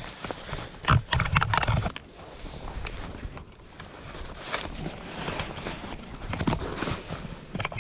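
Wild turkey gobblers gobbling close by: a rapid rattling gobble about a second in, with more calls later.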